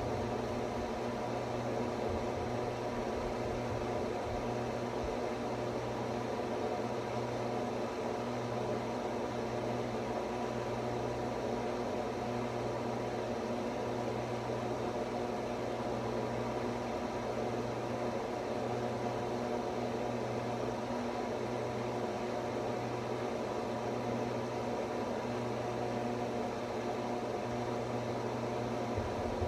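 Steady hum of a running motor or fan, with a low buzzing tone that does not change.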